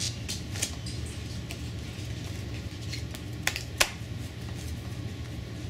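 Playing cards handled in the hands as the deck is squared and cut, giving a few light clicks and ticks, the two sharpest close together about three and a half seconds in, over a steady low hum.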